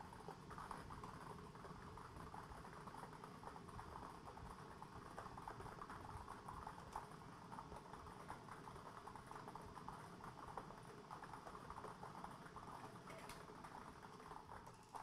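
Lottery ball machine mixing its balls: plastic balls tumbling and clattering against each other and the clear sphere in a faint, continuous rattle of small clicks while the next number is being drawn.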